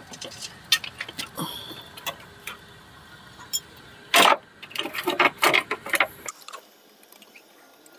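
Scattered light clicks and taps of pliers and hand tools on hose clamps and fittings in an engine bay, with a quick run of clicks about four to six seconds in.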